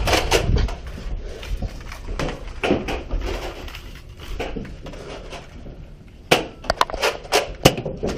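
Low handling and movement noise, then a quick run of about six sharp clicks and knocks a little after six seconds in.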